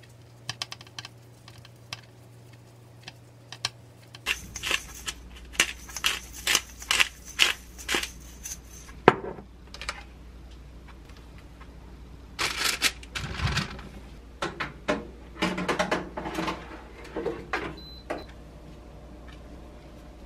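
Kitchen handling sounds: a disposable glove rustling as it rubs seasoning into pork steaks on a stainless steel tray, with light metallic clicks. About thirteen seconds in there are heavier knocks and a thud as the tray goes into an air fryer, followed by more clinks and a short electronic beep near the end as the air fryer is set.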